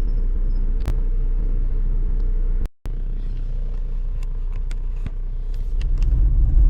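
Steady low rumble of a car on the move, with a brief cut in the sound about two and a half seconds in and a few faint clicks; the rumble swells near the end.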